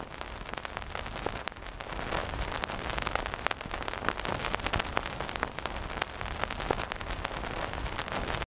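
Synthesized vinyl record noise from Ableton Wavetable's 'Vinyl Dirt Soft' noise wavetable transposed down four octaves: dense random crackles and pops over a low hiss and rumble, with no pitched tone left in it. It cuts off suddenly at the end.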